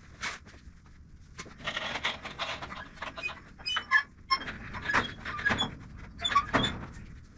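A steel ceiling panel being cranked up on a drywall panel lift: an irregular run of clicks and knocks with short squeaks from the lift's winch and cable and the sheet metal, the loudest knocks about four, five and six and a half seconds in.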